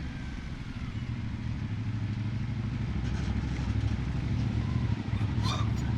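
CFMoto 450 CL-C's parallel-twin engine running steadily at cruising speed while the motorcycle is ridden.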